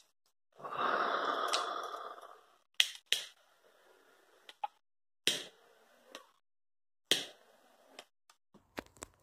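Handling noise from a plastic outboard throttle grip and its tape-wrapped cable: a rushing noise of about two seconds near the start, then several sharp clicks and knocks spread through the rest.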